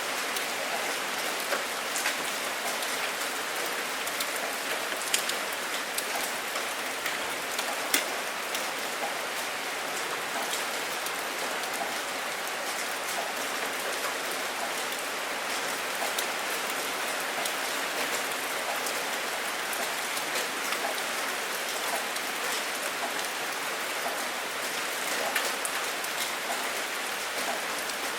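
Steady rain falling, a dense even hiss dotted with the sharper ticks of individual drops, two of them a little louder about five and eight seconds in.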